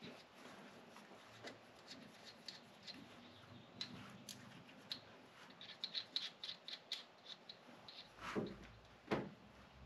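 Hand ratchet wrench clicking in short runs as a nut is backed off its stud, with two louder metal knocks near the end.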